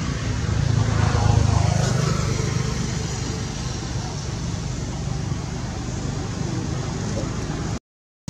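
Steady rumble of motor traffic, swelling as a vehicle passes about a second in. The sound cuts off suddenly near the end.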